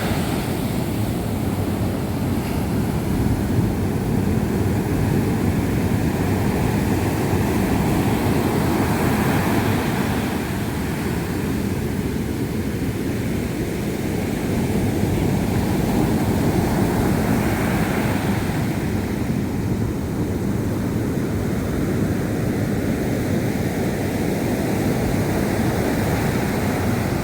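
Sea waves breaking and washing on the shore: a steady surf noise, heaviest in the low range, that swells a little and eases over several seconds.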